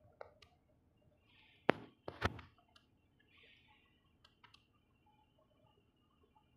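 Scattered light clicks and two sharp knocks about half a second apart, a little under two seconds in.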